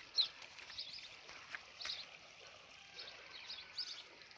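Shallow rocky creek trickling faintly, a thin steady water sound from a stream just beginning to run again, with scattered short high chirps.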